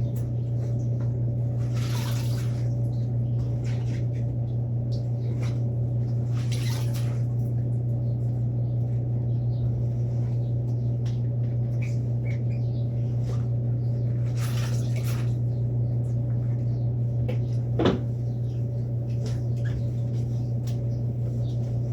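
A steady low electrical hum throughout, with a few brief scrubbing or handling noises and one sharp knock near the end.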